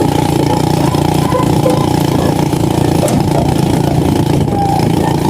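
Buggy engine running steadily under way, at an even, unchanging speed.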